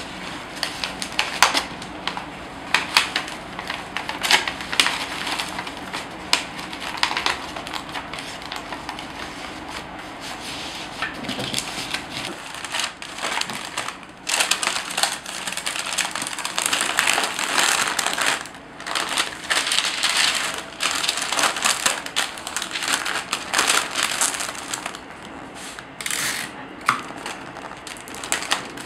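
Paper rustling and crinkling as a box is folded and wrapped by hand in a large sheet of wrapping paper, with many short crackles as the paper is creased.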